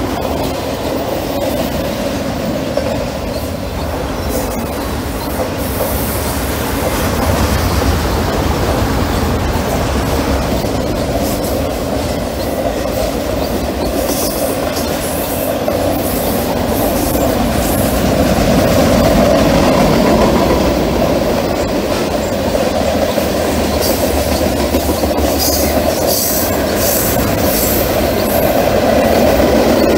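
Freight cars of a Union Pacific mixed freight train rolling past at speed, mostly autoracks and then covered hoppers: a steady loud rumble and rattle of steel wheels on rail, with a cluster of sharp clicks near the end.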